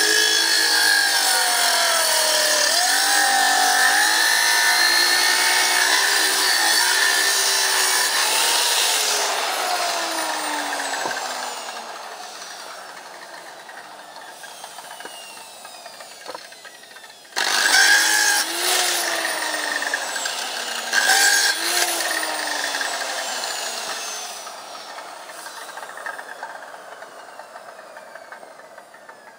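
Power saw cutting firewood: the motor's pitch dips and recovers as it bites into the wood, then it winds down with a falling whine about ten seconds in. A second, shorter cut starts abruptly about seventeen seconds in and winds down the same way.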